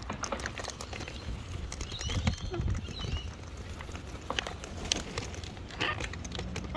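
Scattered light taps and clicks, with a few faint high bird chirps about two to three seconds in.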